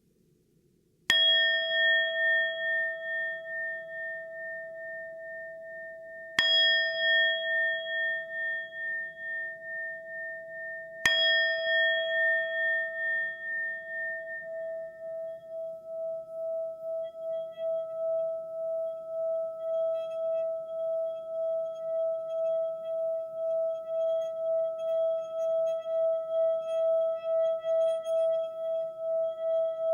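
Singing bowl struck three times, about five seconds apart. Each strike leaves a long ringing tone, and from about halfway through the tone holds steady with a regular pulsing waver instead of fading.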